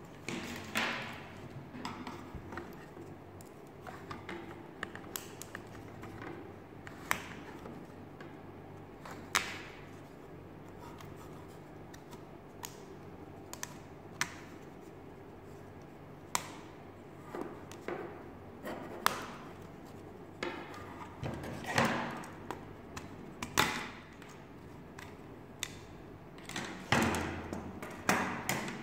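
Scattered light clicks and taps of thin laser-cut plywood model parts being handled and pressed out of their sheet, with a few longer scraping bursts.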